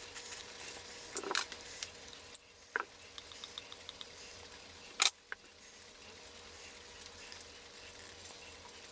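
Scattered small clicks and taps of clock parts being handled on a workbench, with one sharper click about five seconds in and a quick run of faint ticks just before it, over a steady faint hiss and hum.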